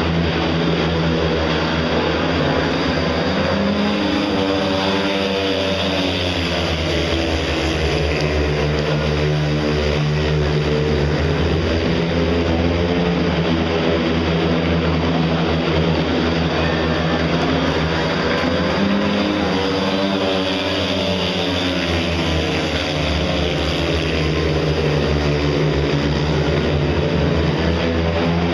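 Speedway motorcycles racing: several 500 cc single-cylinder methanol engines revving hard around the oval. The engine note swells and bends in pitch twice as the pack comes through the nearer part of the track.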